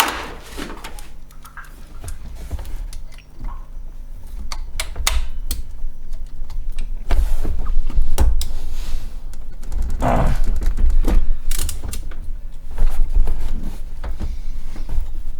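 Scattered metal clicks, knocks and clunks of hand tools and parts being worked on an engine's drive belt pulleys, over a low rumble.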